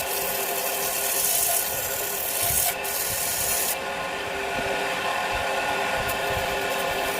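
Wood lathe running while abrasive rubs against the spinning wood, a hissing scrape over the steady hum of the machine. The scraping eases off about three and a half seconds in, leaving the lathe running.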